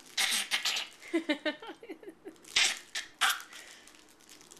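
Baby laughing in short breathy huffs, with a quick run of little voiced giggles in the middle and two more sharp huffs a little after halfway.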